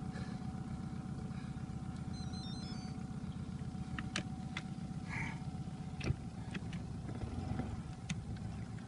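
Small outboard motor idling steadily, with a few light knocks.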